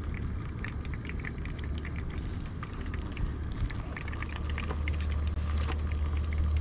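Oil in a frying pan starting to sizzle and crackle around a whole white perch, with scattered small pops that come thicker from about halfway through, over a steady low rumble.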